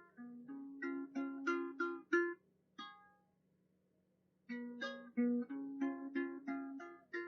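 Background music: a short plucked-string tune of separate notes in two phrases, with a pause of about a second and a half between them.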